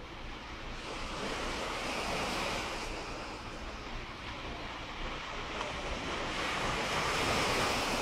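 Small waves washing onto a pebble beach, swelling louder as wavelets break about two seconds in and again, more strongly, near the end.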